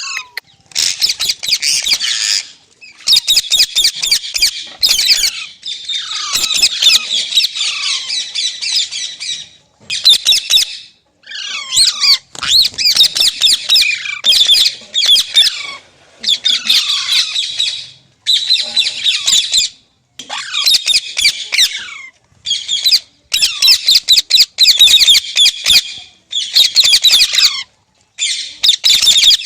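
Green parrot screeching in loud, harsh bursts of one to three seconds each, about a dozen of them with short pauses between.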